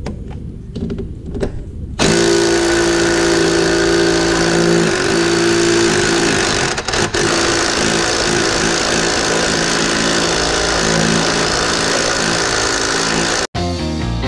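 An impact wrench hammers on a stubborn bolt: after a couple of seconds of quieter handling it starts suddenly and runs for about eleven seconds, with its motor whine steady under the rapid hammering and two short dips. It cuts off abruptly near the end.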